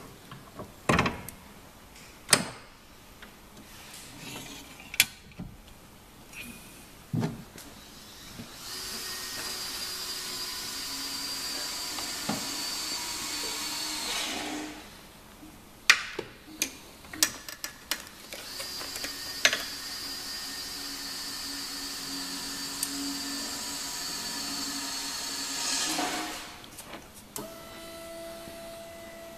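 Electric boot-hoist motor running in two long steady stretches, with a constant whine, as the hoist is powered from its hand controller. Sharp clicks and knocks of metal fittings and the hoist arm being handled come before and between the runs.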